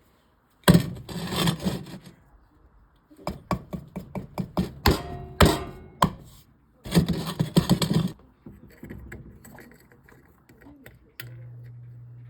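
Kitchen handling noises: two longer scraping, rustling stretches with a quick run of wooden knocks and clicks between them. A steady low hum starts near the end.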